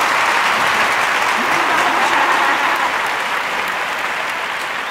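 Applause, a dense steady clapping that starts abruptly and holds at an even level.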